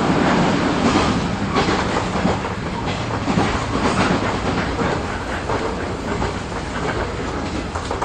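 JR 415 series electric train running, heard inside the car: steady rumble of the wheels with clicks over rail joints, gradually getting a little quieter.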